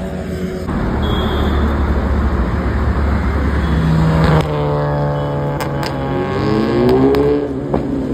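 Sport motorcycle engines running under a steady low traffic drone. About four seconds in, one motorcycle's engine revs and passes close, its pitch climbing and then falling away near the end, with a few sharp clicks in between.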